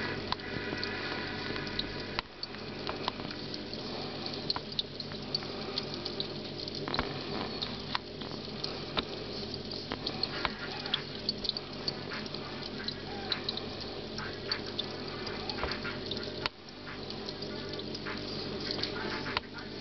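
Aquarium equipment running: a steady low hum from a pump or filter, with water trickling and many small clicks and ticks.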